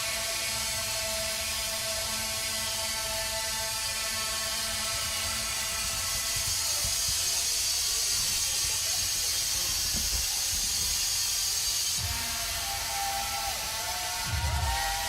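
Live electronic noise music: layered sustained drones under a dense, rattling hiss that swells in the middle, with irregular low pulses. Near the end wavering, gliding tones come in and a heavy low hit sounds.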